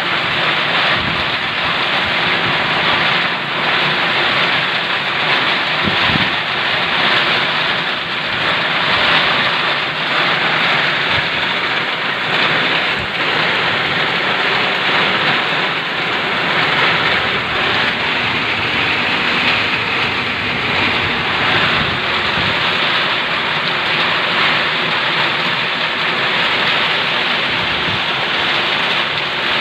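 Heavy tropical downpour driven by storm wind, a dense steady hiss of rain with gusts buffeting the microphone.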